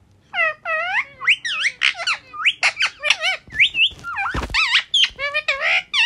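Indian ringneck parakeet giving a rapid run of short squeaky chirps and chatter that glide up and down in pitch, with a brief hissing burst about four seconds in.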